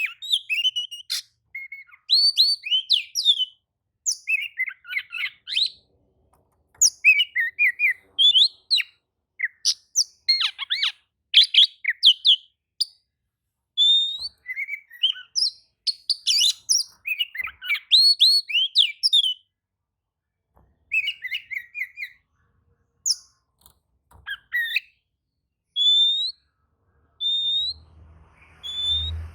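Oriental magpie-robin singing a worked-up song: quick runs of varied whistles and chirps, broken by short pauses. Near the end there is a faint low rumble.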